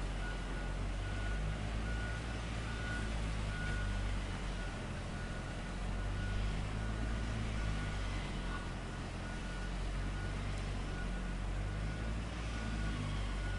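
Heavy construction machine's diesel engine running steadily, with its reversing alarm beeping repeatedly, about twice a second.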